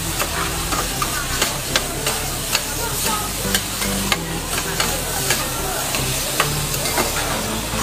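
Noodles frying on a hot teppanyaki griddle with a steady sizzle, while metal spatulas scrape and clack against the steel plate as they are tossed, in sharp irregular clacks about once or twice a second.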